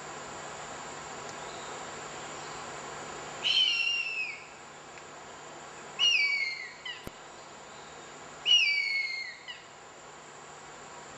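Harpy eagle calling: three high, drawn-out wails, each about a second long and falling in pitch, about two and a half seconds apart, over a steady hum of rainforest insects.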